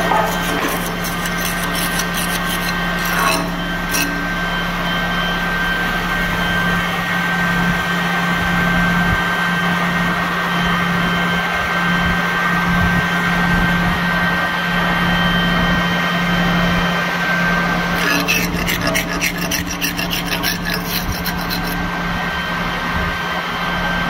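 Slag being scraped and chipped off a fresh jet-rod weld bead with a flat steel hand tool, in bursts of quick scraping strokes at the start, around three to four seconds in, and again from about eighteen to twenty-one seconds in. Under it an engine-driven welding machine runs steadily with a constant hum.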